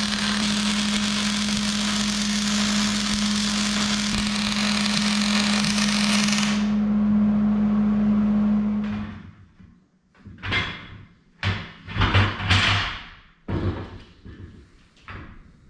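Wire-feed welder arc crackling steadily while welding a steel truss onto a Sterling 10.5 rear axle housing. The crackle stops about six and a half seconds in, and a steady hum carries on for about two more seconds. After that come several short metallic knocks and scrapes as the truss is handled on the axle.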